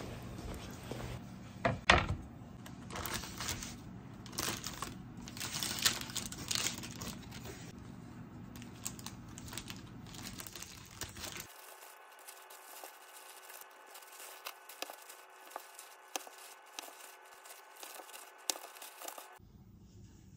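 Footsteps in soft slippers on a tile floor with handling noise and a sharp knock about two seconds in; then a knife slicing through a chilled log of chocolate cookie dough on parchment paper, with paper crinkling and short taps of the blade on the wooden board.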